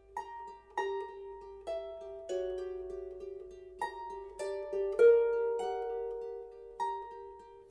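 Lever harp played solo: plucked notes, one or two at a time, each ringing on and fading, over a lower note plucked again and again beneath them. The loudest note comes about five seconds in.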